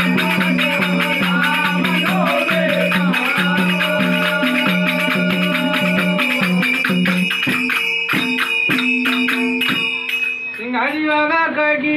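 Bhajan accompaniment: a hand drum and jingling metal percussion keep a steady rhythm under a sustained held drone, with a singing voice at first. The music breaks off about ten and a half seconds in and a single voice continues alone.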